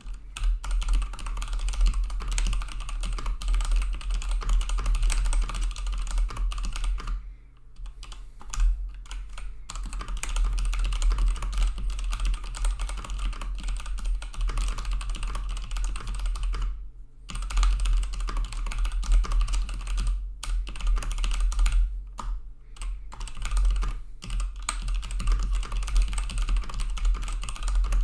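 Fast typing on an MSI Vigor GK41 mechanical gaming keyboard, with a steady stream of key clicks that stops for brief pauses about seven seconds in and again about seventeen seconds in.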